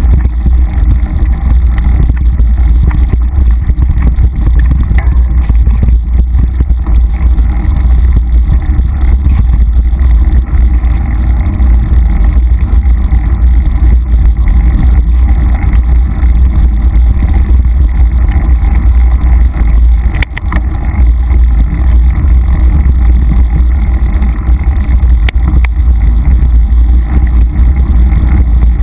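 Loud, steady low rumble of wind and trail vibration on a bike-mounted action camera's microphone as a mountain bike rides fast down a dirt singletrack, with a few sharp knocks in the last third.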